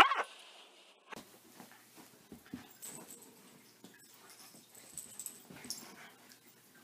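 A dog's bark ends right at the start; after a short gap, faint scattered scuffles and rustles of a small dog pulling plush toys off a pile on carpet.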